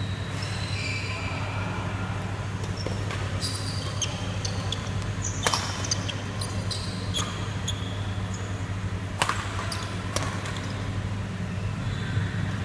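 Badminton doubles rally: a run of sharp racket strikes on the shuttlecock, the loudest about five and a half and nine seconds in, with short high shoe squeaks on the court floor between them, over a steady low hum.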